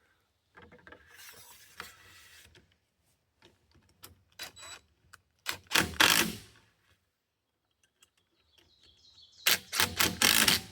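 Stainless hose clamps being worked on plastic maple sap mainline tubing: scattered clicks and rubbing, with short rasping bursts that are louder around six seconds in and again near the end.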